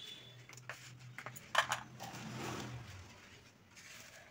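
Hands mixing dry biscuit crumbs and nuts in a bowl: faint rustling with a few light clicks, the sharpest about one and a half seconds in, over a steady low hum.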